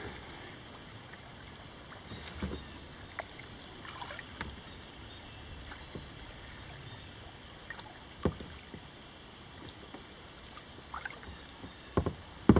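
Kayak paddling: a double-bladed paddle dipping and knocking now and then, the sharpest knock about eight seconds in and two more close together near the end, over a faint steady hiss.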